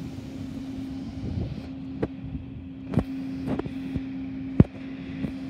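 Amtrak passenger cars rolling past on the track: a steady hum over the running rumble, with sharp knocks four times, the loudest about three-quarters of the way through, as the wheels pass over rail joints.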